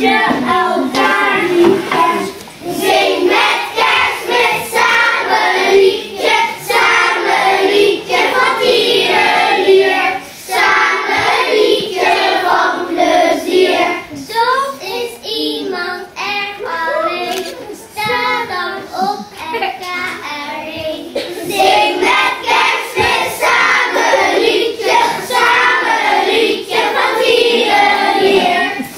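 A group of young children singing a song together, sustained through the whole stretch with short breaks between phrases.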